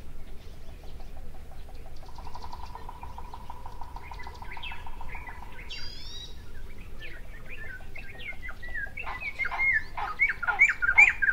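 Songbirds chirping and calling, with a fast, steady trill through the first half and a louder, quicker run of chirps near the end.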